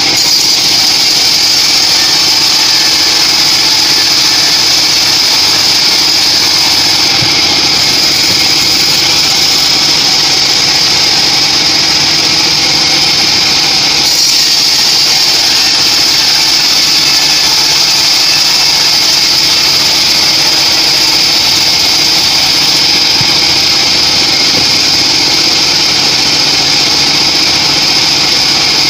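Homemade band sawmill running steadily as its band-saw blade cuts lengthwise through a teak log, a loud, even high-pitched whine over the drive's hum.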